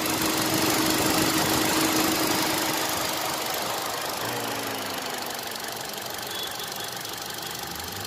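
Hyundai i10 Kappa engine idling steadily with its electric radiator cooling fan running, an even rush of air noise over the engine hum that eases off gradually. The idle is smooth, with no misfire or hunting, now that the cylinder head has been replaced.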